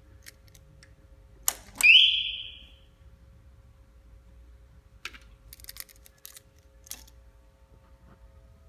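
TOPGEAR CS-550 motorcycle theft alarm's siren giving one short chirp, a tone that rises quickly and then holds for about a second, right after a sharp click. A few light clicks follow later.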